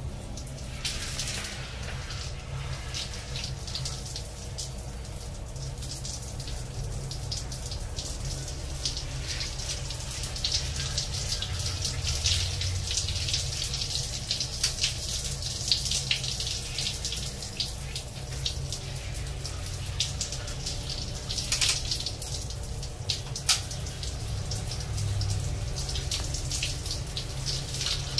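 Water from a hand-held shower running and splashing over a soapy baby monkey being rinsed. It starts about a second in, with scattered louder splashes.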